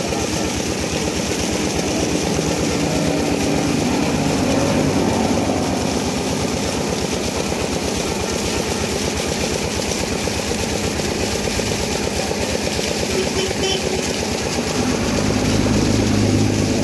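Diesel engine of a shallow-machine irrigation pump running steadily while it pumps water out of a field, its firing heard as a rapid, even beat, with a deeper hum that grows louder near the end.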